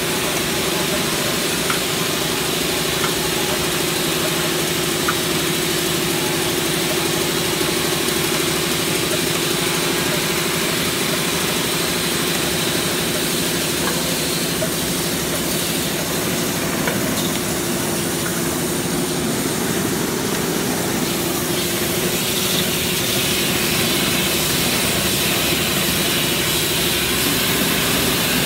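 Erusun RFC18-18-6 rinse-fill-cap water bottling machine running steadily: a constant mechanical hum over hiss, with a few faint clicks.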